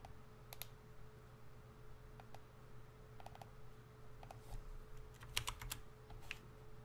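Faint, irregular clicks of typing on a computer keyboard, with a quick flurry of keystrokes a little past halfway. A steady faint hum runs underneath.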